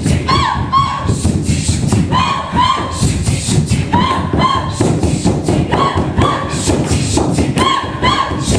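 Women performers stamping in rhythm on a wooden floor, with pairs of short, high, rising vocal cries repeating about every two seconds.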